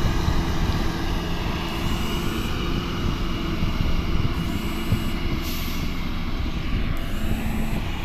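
SANY single-drum road roller's diesel engine running steadily as the machine drives along, with a constant low hum.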